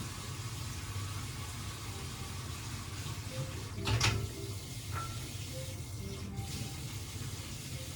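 Water running steadily from a tap, with a sharp knock or clack about four seconds in and faint background music with short soft notes.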